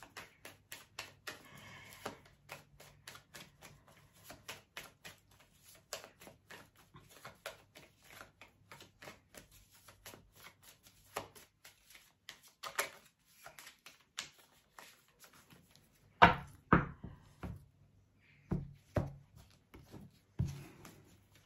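A deck of fortune-telling cards being shuffled by hand, a long run of quick soft flicks. Near the end come a few louder knocks on the table as the cards are laid out.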